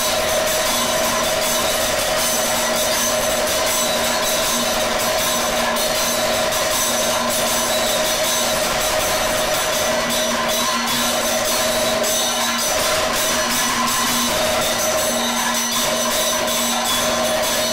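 Kathakali percussion accompaniment: a chenda drum played with sticks in fast, dense strokes, with bronze hand cymbals (ilathalam) clashing over it and a steady held tone underneath.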